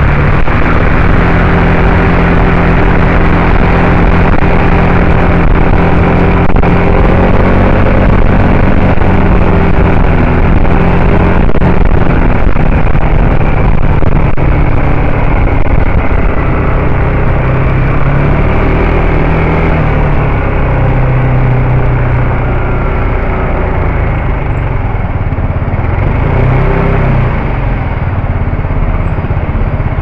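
Yamaha Majesty S scooter's single-cylinder engine running at road speed, with a steady rush of road noise. Its pitch dips and rises a few times in the later part as the speed changes.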